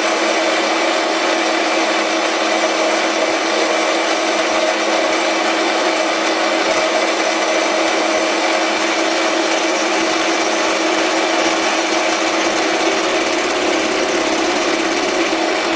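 Metal lathe running steadily at 970 RPM, a constant-pitch hum under a hiss, while a carbide insert tool takes a turning pass along a steel taper.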